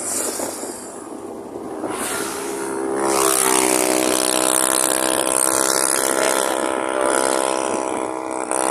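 Wind rush and road noise from a moving vehicle, joined about three seconds in by a loud, steady engine drone that rises slightly in pitch as it comes in.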